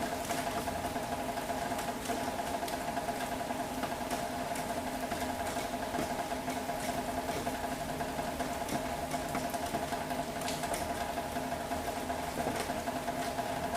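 Rain falling in a city, with scattered drops ticking over an even hiss and a steady mechanical hum like an idling engine or traffic.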